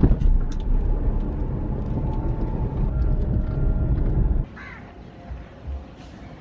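Loud low rumble of a moving vehicle and wind, cutting off abruptly after about four seconds to quieter open-air ambience, where a crow caws once.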